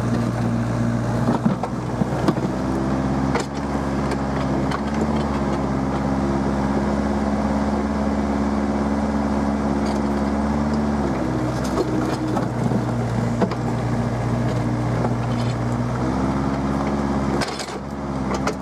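Mini excavator's diesel engine running steadily as the bucket digs. The engine note drops for a few seconds past the middle and comes back up. A few sharp knocks in the first few seconds come from the bucket striking earth and brick rubble.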